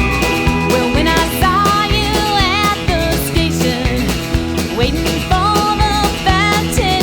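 Country-rock band playing with drums keeping a steady beat under guitars. From about a second in, a lead melody line slides and bends in pitch above them.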